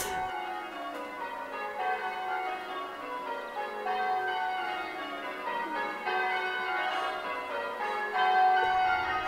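Bells ringing a shifting sequence of overlapping notes, each tone held and fading into the next.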